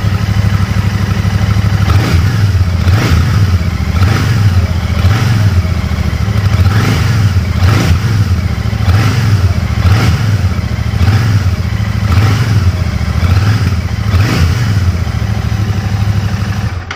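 Royal Enfield Shotgun 650's 648cc parallel-twin engine running steadily through its exhaust, with a recurring stronger pulse about once a second.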